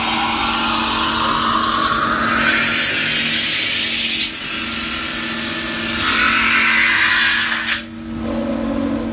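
CNC metal spinning lathe running with a steady hum while its roller forms a sheet-metal blank on the spinning mandrel: a rising whine over the first two seconds, then rough hissing passes that break off about four seconds in and again near the end.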